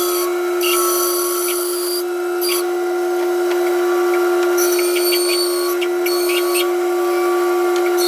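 Bandsaw running with a steady whine while its blade rips a bark-covered cherry log, the high-pitched cutting noise coming and going as the log is fed through.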